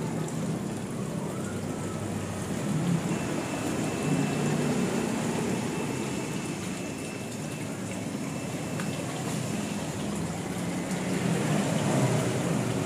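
Water pouring down a waterfall into a pond, a steady splashing.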